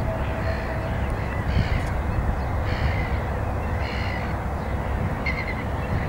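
A flock of gulls calling, short harsh calls coming about once a second, over a steady low rumble.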